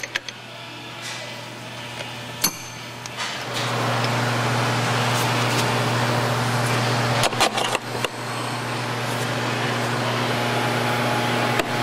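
A steady machine hum with a hiss, growing louder about three and a half seconds in. A few light clicks and knocks come over it, from parts being handled under the car.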